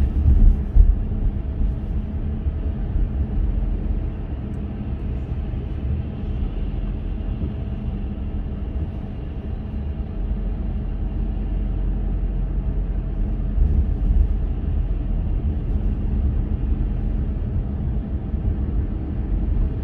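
Car driving on city streets: a steady low rumble of road and engine noise.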